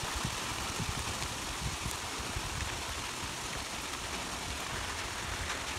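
Heavy rain falling steadily on trees and open water.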